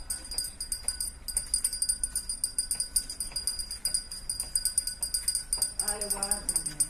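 Jingle bells shaken continuously in a fast, uneven jangle. A person's voice calls out briefly near the end.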